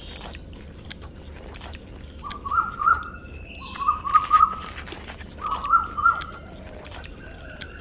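Animal calls outdoors: three short bursts of rapid, chirping notes, each lasting about a second.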